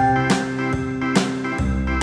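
Background music: an upbeat instrumental with plucked, guitar-like notes over a steady beat.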